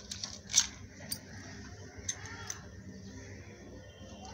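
A hand mixing a wet chilli-powder and salt paste in a stainless steel plate: a few light clicks and scrapes against the metal in the first two and a half seconds, then quieter.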